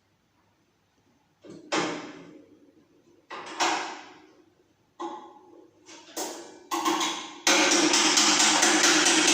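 Metal being struck by hand, five separate blows each ringing out for a second or so, then a loud continuous rapid clatter of work on the metal from about seven and a half seconds in.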